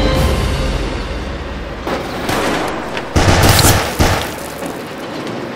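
Several handgun shots in a shootout, sharp bangs with a ringing tail, the loudest and densest about three to four seconds in, over a low rumble.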